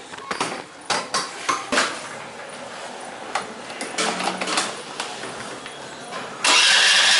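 Suzuki Access 125 scooter's electric starter cranking its single-cylinder engine for a spark check at the plug: a loud, steady, even whir that starts suddenly about six and a half seconds in and keeps going. Before it come a few scattered clicks and knocks.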